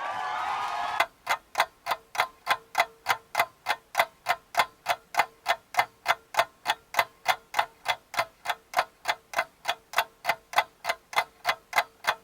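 Rapid, evenly spaced ticking, about three to four ticks a second, starting about a second in, with a faint steady tone underneath.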